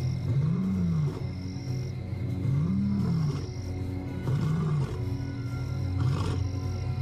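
Male lion roaring: four long roars, each rising and falling in pitch, about every one and a half to two seconds. The lion is calling to a lost companion. A steady droning music score runs underneath.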